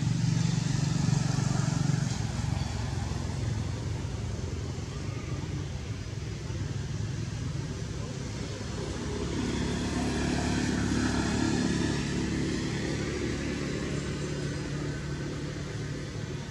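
Motor vehicle engine noise: a steady low hum, with a second, higher hum joining about nine seconds in.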